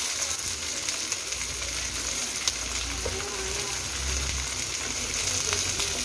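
Tofu slices topped with meat paste frying in oil in a nonstick pan, giving a steady, even sizzle.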